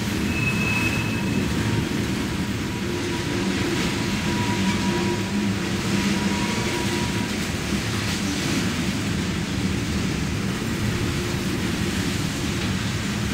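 Grain train rolling past on the rails: a steady low rumble from its cars, with a faint thin high tone in the first few seconds.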